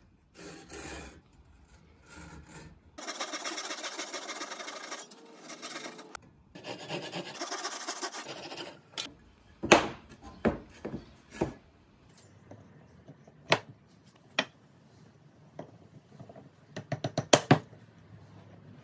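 Bahco ProfCut handsaw cutting a tenon in a pine stool leg: repeated sawing strokes, in two long runs broken by a short pause. Then scattered sharp wooden knocks as the cut pieces are handled and set down, the loudest a cluster near the end.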